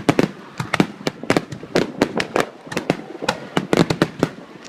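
Fireworks bursting in a rapid barrage: a dense, irregular string of sharp bangs, about four a second, each with a short echo after it.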